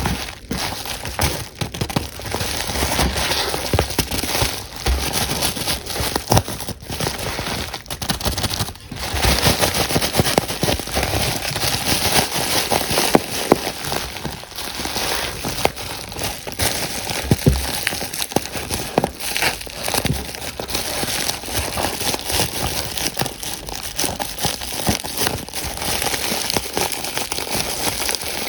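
Plastic packaging crinkling as it is handled and opened, a dense, continuous crackle broken by short pauses.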